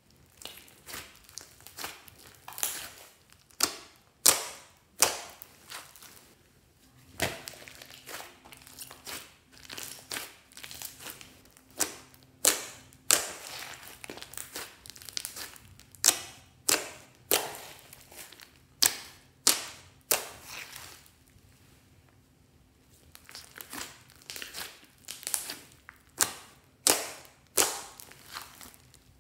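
Hands squeezing and pressing thick slime, giving irregular sharp wet pops and crackles, about one to two a second, with a short lull past the middle.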